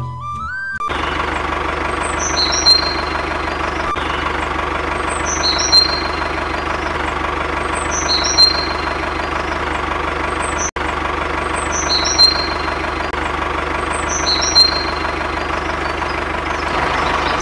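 A heavy vehicle engine idling steadily, starting abruptly about a second in, with a short high squeal recurring every few seconds.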